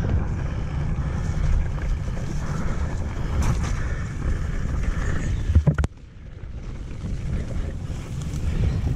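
Wind buffeting the camera microphone and mountain bike tyres rolling over a wet gravel forest track, a steady rumble. A sharp knock comes a little over halfway through, after which the rumble briefly drops.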